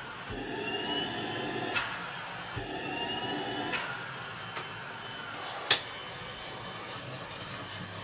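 Tineco Pure One S11 cordless stick vacuum running, its motor sound swelling twice with a rising high whine, each time ending in a click. A sharp click about six seconds in is the loudest sound.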